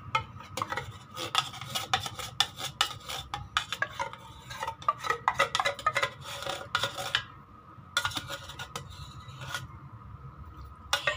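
Hand-held can opener cutting around the rim of a metal can: rapid metallic clicks and scraping, with short pauses about seven and ten seconds in.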